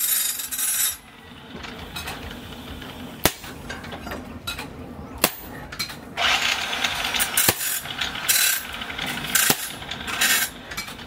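Sharp metallic strikes of a hammer on a handled hot-cut chisel set on red-hot steel, four blows about two seconds apart, cutting the glowing steel. Stretches of rough hiss come between the blows.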